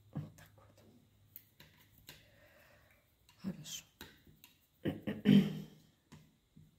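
A woman's short wordless vocal sounds and breaths, such as hums or sighs, loudest about two thirds of the way in, with a few small clicks between them.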